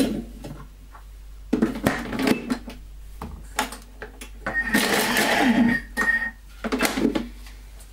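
Plastic and metal clattering as the lid and measuring cup are fitted onto a Thermomix TM31 mixing bowl, then, about halfway through, the Thermomix blade spins up and chops a quartered onion for under two seconds with a dense whirring rattle and a steady high whine.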